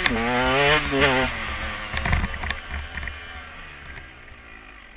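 KTM 125 EXC Six Days two-stroke enduro engine revving hard, its pitch dipping once and climbing again. After about a second the throttle closes and the revs fall away, the engine sound fading as the bike slows down.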